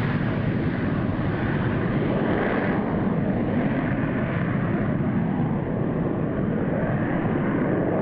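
F-16 fighter jet flying away with its afterburner lit: steady, muffled jet engine noise.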